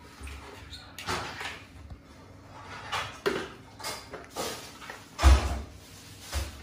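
A hollow plastic stool knocking and scraping on a wooden floor as it is tipped over and climbed on: a series of separate clatters, the loudest a heavy thump a little past five seconds in.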